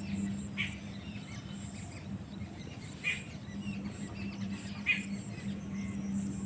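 Outdoor ambience: a steady high insect buzz over a low steady hum, with three short bird-like chirps spread across it.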